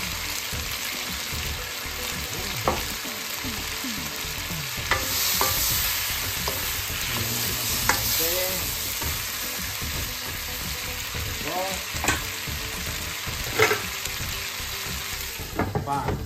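Vegetables (pumpkin, long beans, tomato) sizzling in a hot pan as they are stir-fried, with a wooden spatula scraping and knocking against the pan every few seconds.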